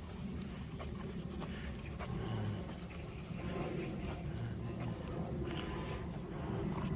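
Insects chirring steadily in the background with a continuous high-pitched drone, over a low rumble of outdoor noise.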